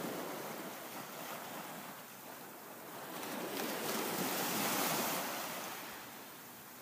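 Wind rushing over the microphone outdoors, an even noise that swells about four to five seconds in and then eases off.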